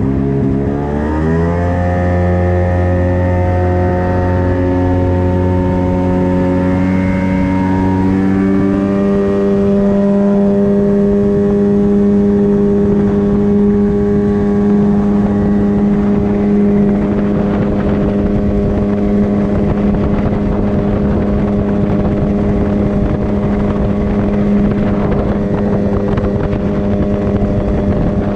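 1995 Sea-Doo Sportster jet boat's Rotax 657X two-stroke twin running under way. The engine note climbs about a second in, steps up again around eight seconds, then holds steady at speed, with a rough hiss of water and wind growing underneath.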